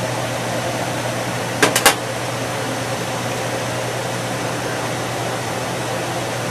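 Steady mechanical hum with a rushing hiss from the kitchen. About a second and a half in, a glass pot lid clinks three quick times against the rim of a stainless steel stockpot of steaming shrimp.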